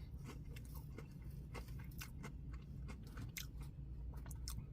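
A person chewing a mouthful of Nashville hot chicken biscuit close to the microphone, with many small irregular crunchy clicks. A low steady hum runs underneath.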